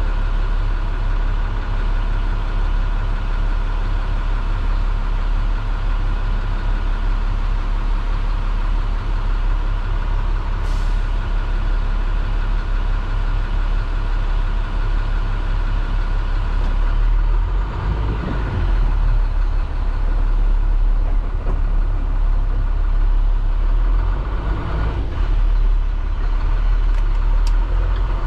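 MaxxForce DT inline-six diesel of an IC CE school bus, heard from the driver's seat, running steadily at idle. About seventeen seconds in it picks up as the bus pulls away and turns, with the revs rising and falling.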